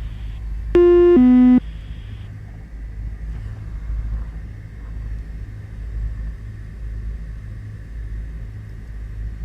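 Beechcraft Baron's twin piston engines idling, heard as a steady low rumble through the cockpit intercom. About a second in, a loud electronic alert tone sounds once, a higher note followed by a lower one.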